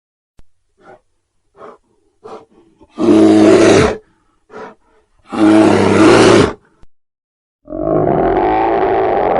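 A bear roaring, two loud roars of about a second each, preceded by several short, quieter huffs. Near the end a long, steady low rumbling sound begins.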